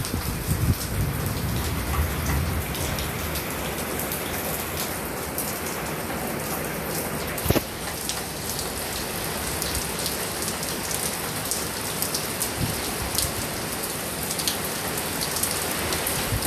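Heavy rain falling steadily, with many small drop ticks on nearby surfaces and one sharp knock about seven and a half seconds in.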